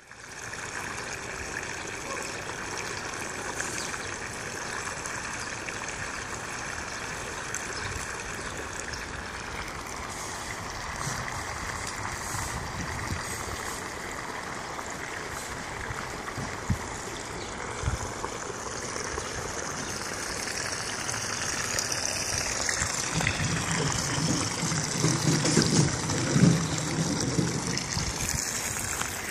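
Water trickling steadily over the pressed-down rim of an inflatable above-ground pool where a large python's body drags across it, growing louder near the end.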